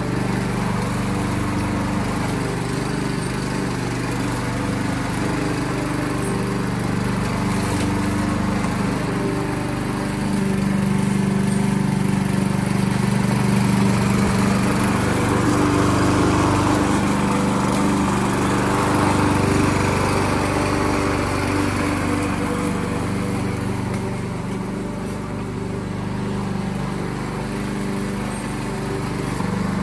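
Yardworks self-propelled gas lawn mower engine running steadily while cutting grass. It grows louder for about ten seconds in the middle as the mower comes close, then eases off again.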